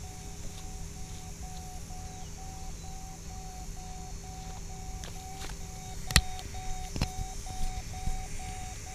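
A steady electronic tone pulsing roughly three times a second over a fainter steady lower hum and a low rumble, from the quadcopter's electronics picked up by the onboard camera. Two sharp knocks come about six and seven seconds in.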